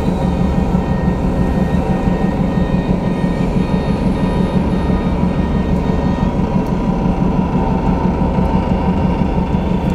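A large passenger ferry's onboard machinery running: a loud, steady low hum with a few constant tones over it and no change in pace.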